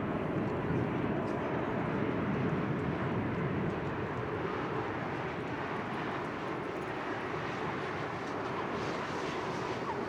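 Jet engines of a Boeing 787-8 airliner running at high power for takeoff: a steady, dense rumble that eases slightly about four seconds in.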